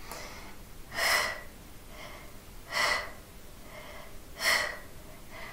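A woman's forceful exhales, three of them at an even pace about every second and a half, each one timed to the lift of a side-plank hip dip.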